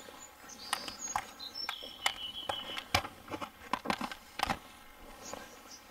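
Footsteps crackling and snapping through dry leaves and twigs, with a few brief high bird whistles, one held steady for about a second.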